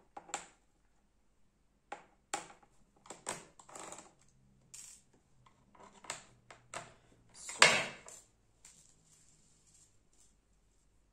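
Scattered clicks, taps and light knocks of an Acer Aspire ES1-531 laptop's plastic case and parts being handled during disassembly, with the loudest knock about two-thirds of the way through.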